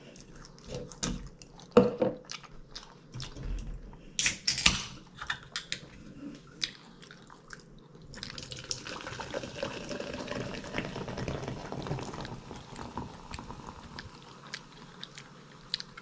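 Eating sounds with scattered clicks and taps, then from about eight seconds in a steady pouring of a drink into a glass for about six seconds.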